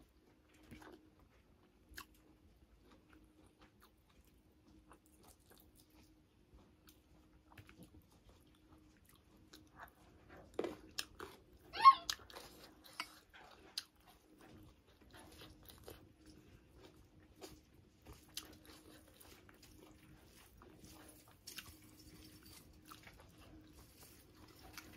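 Close-miked eating: a person chewing with small crunches, lip smacks and mouth clicks. About halfway through comes a louder cluster of smacks and a brief squeaky pitched sound.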